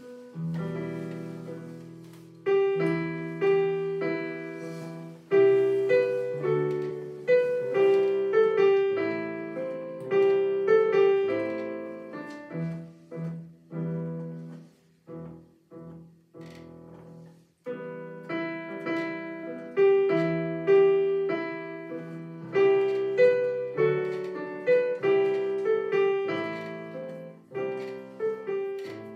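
Digital piano playing a slow piece in chords and melody, each note ringing and dying away. The playing goes soft around the middle, breaks off briefly about two-thirds in, then comes back at full strength.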